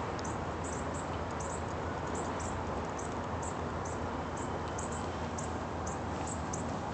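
Steady outdoor background noise with a low rumble, dotted with many short, high-pitched chirps or ticks, a few each second.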